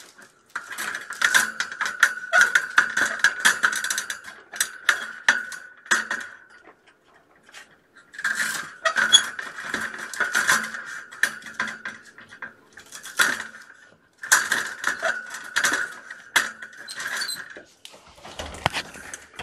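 Rapid mechanical clicking and rattling in three stretches of a few seconds each, with short pauses between them.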